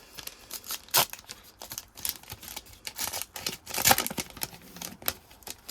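A foil trading-card pack wrapper being torn open and crinkled by hand, with irregular sharp crackles and snaps, loudest about a second in and again around four seconds in.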